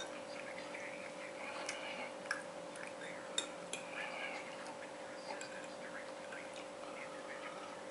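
Metal fork clinking and scraping against a china plate a few times while rice is picked up, over a steady hum.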